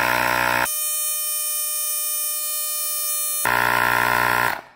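A cordless tyre inflator's compressor runs with a steady buzzing hum while pumping up a car tyre. For a few seconds in the middle the tone turns thinner and higher. It cuts off near the end as the tyre reaches its set pressure of 36 psi.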